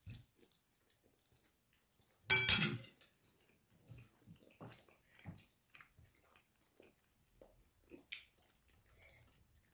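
Chewing a deep-fried crab rangoon, with one loud crisp crunch of the fried wonton skin a little over two seconds in, then quieter chewing with small clicks and smacks.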